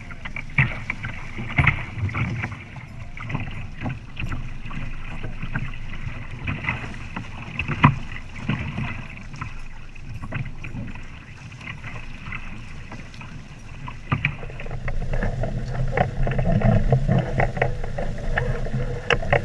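Water rushing and splashing against the hulls of a Topcat sailing catamaran under sail, with many small slaps and one sharper splash about eight seconds in. From about two-thirds through, a heavier low rumble of wind and water takes over.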